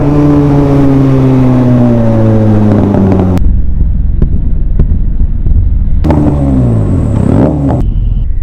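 Benelli TNT 300 parallel-twin motorcycle engine heard from the rider's seat: the revs fall away steadily over the first three seconds as the throttle closes, then it runs low with a rumble, and about six seconds in a quick throttle blip rises and falls.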